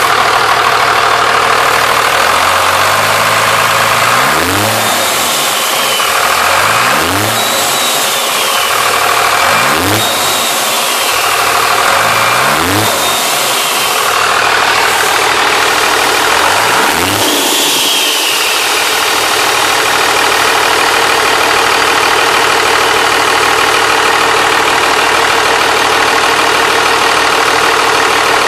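Cummins turbo-diesel engine free-revved five times, each blip followed by the high whistle of its hybrid Holset Super HX40/HX35 turbocharger rising and falling as it spools up and down. After the fifth rev it settles into a steady idle.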